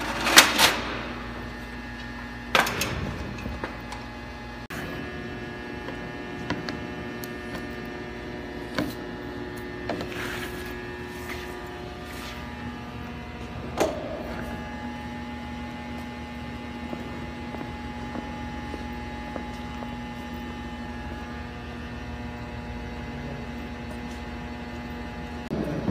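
Steady electric machine hum whose pitch shifts a couple of times, broken by a few sharp knocks, the loudest right at the start.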